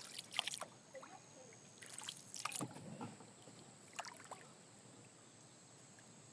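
Small boat on the water: a few scattered short splashes and knocks in the first two-thirds, then only a faint steady hiss.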